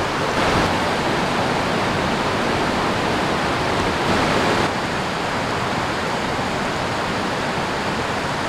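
Steady rushing of a rocky creek, water tumbling over stones in riffles.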